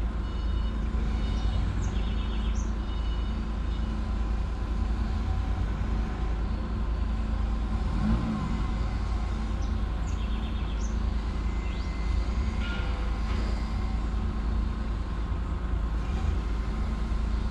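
Vehicle engines running nearby: a steady low rumble with a constant hum, and a brief rise and fall in engine pitch about eight seconds in.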